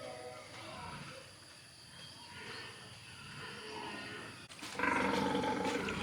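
Pigs grunting and calling, with a louder call lasting over a second near the end.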